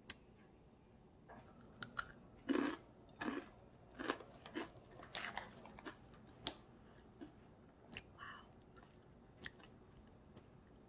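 Takis Fuego rolled corn tortilla chip bitten and chewed: a run of crisp crunches during the first half or so, thinning to a few faint crunches later on.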